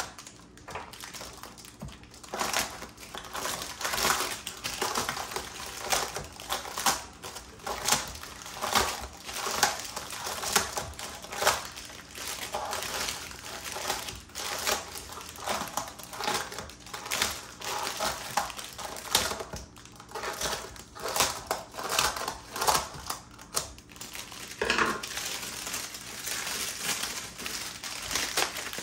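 Scissors snipping through the plastic wrap on a new motocross tire in a run of short, irregular cuts, with the plastic crinkling as it is handled.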